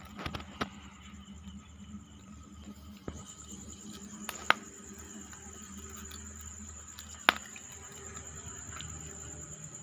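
Insects chirring in a steady high-pitched trill, with two sharp clicks, one about four and a half seconds in and one about seven seconds in.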